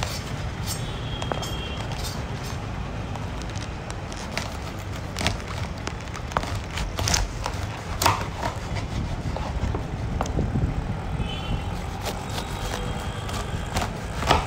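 Busy street ambience: a steady low traffic rumble with indistinct voices, broken by scattered sharp clicks and knocks.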